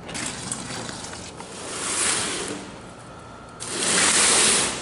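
Two rushes of hissing noise while spilled engine coolant is cleaned up: the first swells and fades, the second starts suddenly about three and a half seconds in and is the louder.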